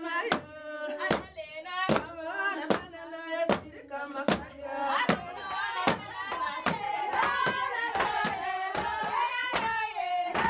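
A group of women singing while they beat a packed earth floor with wooden paddles in time with the song. The paddle strikes come a little under one a second at first, then about twice as fast from about halfway.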